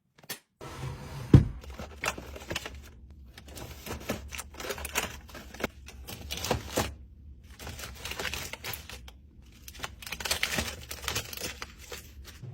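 Plastic packaging of snacks crinkling and rattling, with irregular clicks and light knocks as items are handled and set down while restocking a fridge; one sharper knock comes about a second and a half in.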